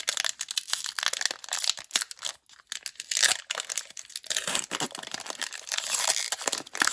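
Foil Pokémon booster pack wrapper crinkling and tearing as it is opened by hand, a steady run of rustles and crackles.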